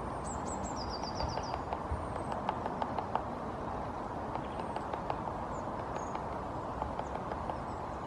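Male great spotted woodpecker excavating a nest cavity in a pine trunk: irregular single pecks of the bill into the wood, not a drum roll, loudest and most frequent in the first three seconds, over a steady low background rumble.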